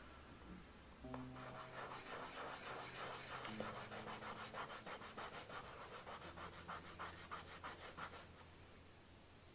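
Soft pastel stick rubbing over paper in quick back-and-forth strokes, about five a second, starting about a second in and stopping near the end.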